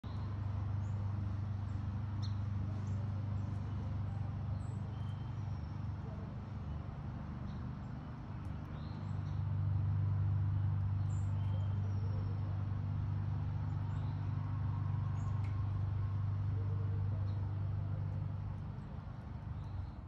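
A steady low machine hum, louder from about halfway and dropping away near the end, with short scattered chirps of small birds at the feeders above it.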